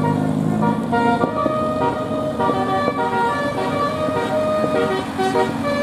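Multi-tone 'telolet' bus horn playing a quick tune of short stepped notes, several pitches sounding together, over a low vehicle rumble.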